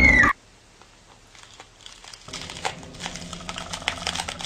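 A loud sound cuts off abruptly just after the start, leaving a quiet stretch. From about two seconds in come faint, scattered crackles and clicks that grow busier toward the end.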